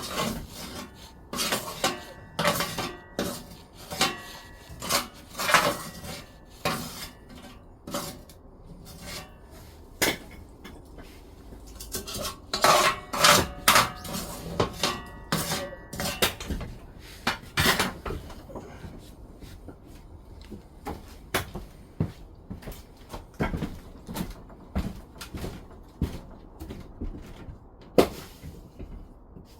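Irregular clatter and knocks of hard objects being handled, some with a short metallic ring, busiest in the first few seconds and again in the middle, thinning out towards the end.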